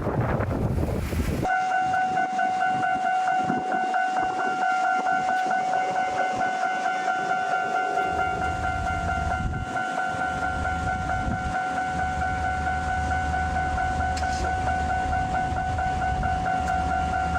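Japanese level-crossing warning bell ringing in a steady, evenly repeated rhythm, starting abruptly about a second and a half in after wind noise. A train's low rumble joins from about eight seconds in.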